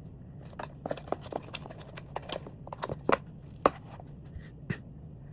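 Irregular light clicks and taps, a dozen or more, as a small handheld device is handled, with the two sharpest about three and three and a half seconds in, over a steady low hum.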